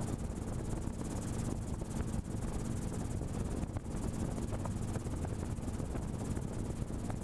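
Helicopter in flight heard from inside the cabin: a steady low drone of the engine and rotor under an even hiss of rushing air.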